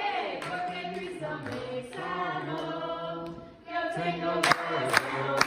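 A group of voices singing a children's worship song together. Near the end two hand claps come in, about two a second.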